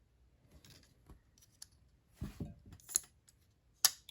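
Spyderco Shaman compression-lock folding knife being handled: soft rubbing and a few light metal clicks, then one sharp click near the end.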